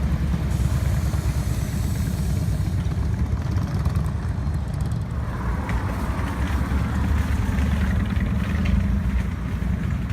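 Engine and road noise of a moving bus heard from inside the passenger cabin: a steady low rumble, with a hiss of road noise swelling about halfway through.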